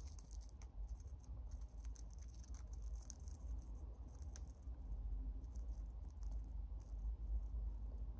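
Dwarf hamster nibbling and crunching on food: a quick, irregular patter of tiny crisp clicks.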